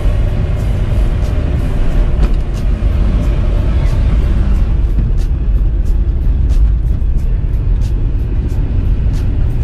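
Inside the cabin of a 2002 VW Parati with its turbocharged 1.0-litre 16-valve four-cylinder running under way: a steady low engine drone with road noise. Music with a regular beat plays over it, its ticks clearer in the second half.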